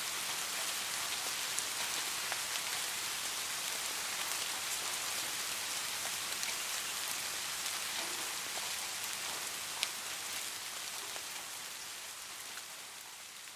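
Steady rain hissing, with individual drops ticking, one sharper tick about ten seconds in. The sound starts to fade out over the last few seconds.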